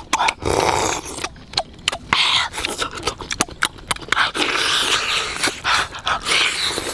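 Close-up eating sounds of a man sucking and chewing cooked turtle meat from the shell: wet slurping and sucking, broken by many quick lip smacks.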